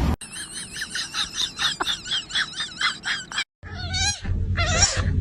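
A fast series of short, high-pitched chirping calls, about four a second. After a brief break come a few longer, wavering kitten mews.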